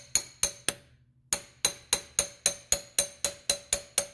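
Hammer strikes on a steel bar driving the pin into the inner joint of a Subaru CV shaft: a quick, even run of ringing metal-on-metal taps, about three to four a second, with a short pause about a second in.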